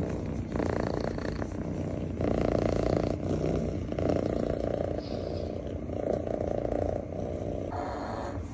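Calico cat purring steadily while stroked under the chin, the purr swelling and easing with each breath about every two seconds.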